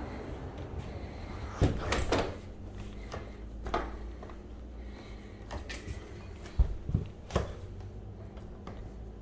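Deadbolt thumb-turn and lever lockset on a glass patio door being worked by hand: a cluster of clicks and clunks a little under two seconds in, another click near four seconds, and three sharp clicks in quick succession about seven seconds in.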